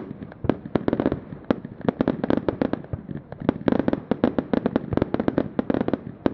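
Fireworks display going off in a dense barrage: rapid sharp bangs and crackles, several a second, over a continuous rumble.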